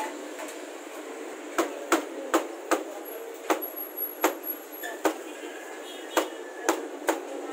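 Large kitchen knife chopping cabbage on a plastic cutting board: sharp chops about twice a second, starting about a second and a half in, over a steady background noise.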